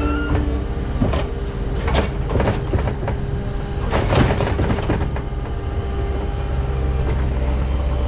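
Skid steer loader's diesel engine running under load as its bucket dumps wet manure into a manure spreader, with clattering knocks from the bucket and the load about one, two and four seconds in.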